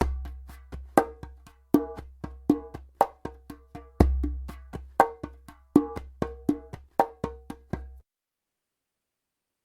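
Djembe played by hand in a steady rhythm of about four strokes a second, with a deep bass stroke twice, about four seconds apart. The playing stops about eight seconds in.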